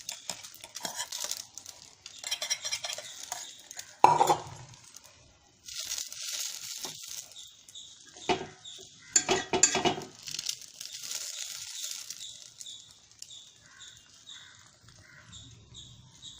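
Beaten egg frying in hot oil in a kadai, with a steady sizzle. A spoon or spatula scrapes and clinks against the metal pan as the egg is spread, with louder knocks about four seconds in and again a few seconds later.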